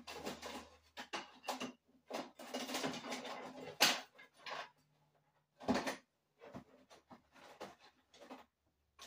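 Tools and hardware being handled and rummaged through by hand: irregular clattering, knocking and rustling, with a sharp click about four seconds in.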